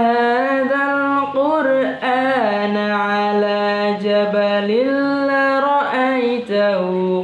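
A boy's solo voice reciting the Quran in the melodic tilawah style, drawing out long held notes with ornamented turns. The pitch starts high, drops a step a little past two seconds, climbs again near five seconds and falls back near the end.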